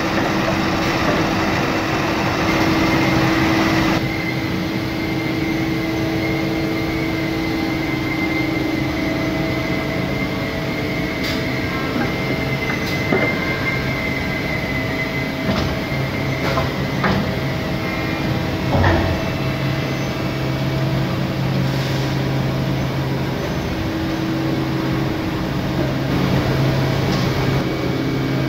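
High-frequency wood-panel gluing press and its hydraulic unit running: a steady industrial machine hum. A louder rushing noise drops away about four seconds in, a few sharp clicks and knocks come in the middle, and a deeper hum sets in about two-thirds of the way through.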